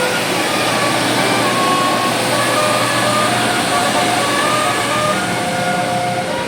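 Tour bus's telolet horn playing a Basuri tune, a run of short held notes stepping up and down in pitch, over loud steady engine and road noise.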